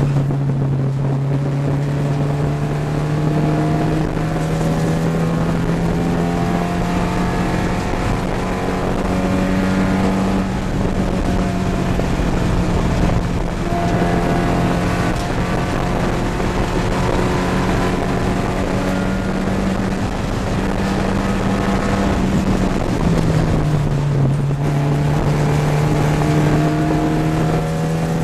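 Porsche 944 Spec race car's four-cylinder engine at racing speed, heard from inside the cabin. Its pitch drops suddenly right at the start and again about 23 seconds in, as it shifts up, and climbs and holds high in between.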